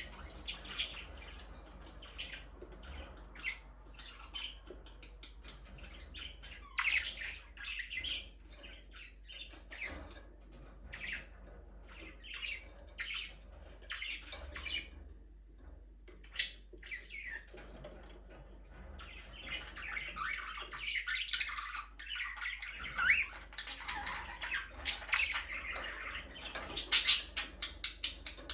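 Budgerigars chirping: scattered short calls at first, growing into continuous chatter about two-thirds of the way in.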